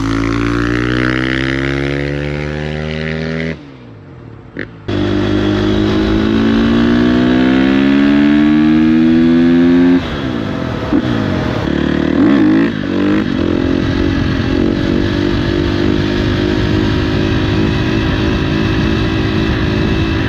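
Single-cylinder four-stroke engine of a 2018 Husqvarna FC350 dirt bike, revving with its pitch climbing steadily, twice, with a brief dip in between about four seconds in. About ten seconds in the pitch pattern breaks up into crossing rising and falling tones, then settles into steadier running.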